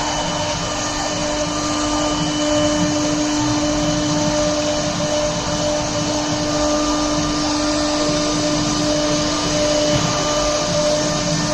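Leapion LR-1325E CNC router running steadily while machining MDF: a constant spindle whine over an even rushing noise.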